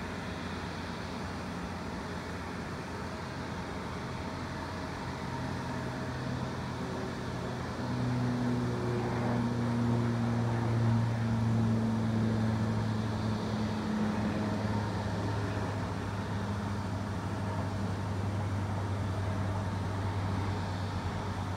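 Jet engines of an Alaska Airlines jet taxiing, heard as a steady rushing drone with a low hum that grows louder about eight seconds in and then eases slightly.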